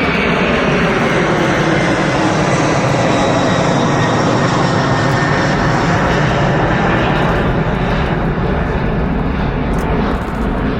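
Large aircraft flying past with a loud, steady engine roar. Its whine slowly falls in pitch as it goes by and eases slightly near the end.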